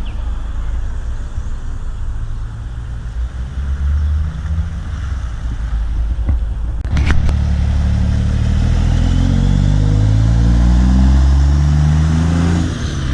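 Car engines running as cars drive slowly past. About halfway through there is a sharp click, then a louder engine takes over, its pitch rising slowly and dropping again near the end.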